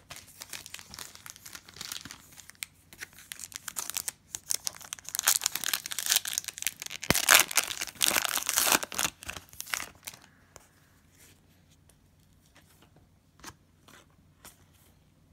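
Foil Panini Prizm trading-card pack being torn open and crinkled by hand, the crackling loudest about five to nine seconds in. After that it drops to a few faint clicks.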